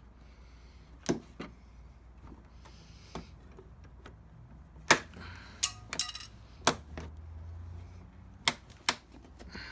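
Scattered sharp clicks and knocks, about nine in all, of hand tools and plastic trim as fasteners are worked out of a 2006 Chevrolet HHR's interior door panel.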